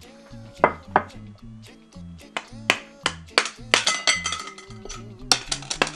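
Background music with a stepping bass line and a beat of sharp, short hits.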